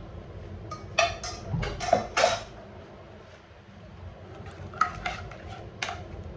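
Steel ladle and dishes clinking and knocking in a kitchen: a quick cluster of about five clinks about a second in, then a few lighter ones near the end.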